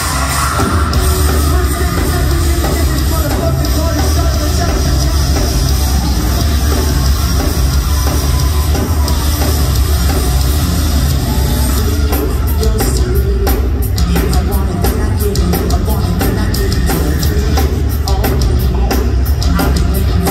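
Live heavy rock band playing loud, with distorted guitars, bass and drums, heard from the crowd. About twelve seconds in the drums switch to rapid, driving hits that stand out over the rest.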